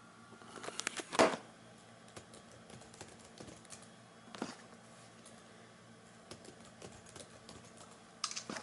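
Scattered keystrokes on a computer keyboard as a password is typed, with a louder knock about a second in.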